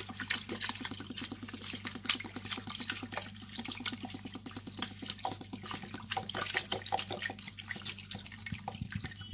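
Water splashing and sloshing in a basin as a hand presses fresh mint leaves down under the water to soak them, in quick irregular strokes, with a faint low hum underneath.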